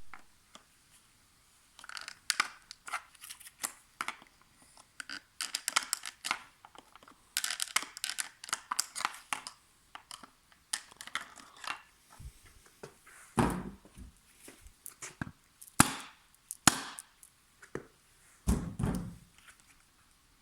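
A stroller wheel and its hub being worked on by hand: an irregular run of plastic clicks, scrapes and crackles, with two heavier low thumps, one about two-thirds of the way in and one near the end.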